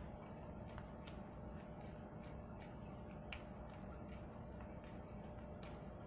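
Faint, irregular clicks and rustles of a tarot deck being handled, cards slid off and turned over, with a faint steady hum underneath.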